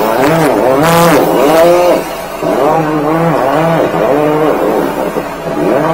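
13-horsepower high-pressure sewer jetter running under load, its whine wavering up and down in pitch every half second or so. A brief hiss of spraying water about a second in.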